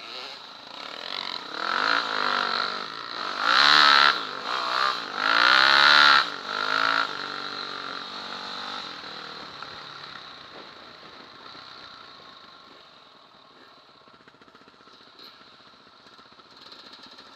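Off-road motorcycle engine revving up and down hard as it rides close past, loudest about four and six seconds in, then fading steadily as it rides away.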